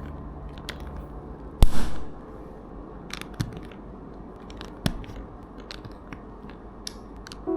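Plastic Lego bricks clicking and snapping together by hand: scattered sharp clicks, with one loud snap about two seconds in.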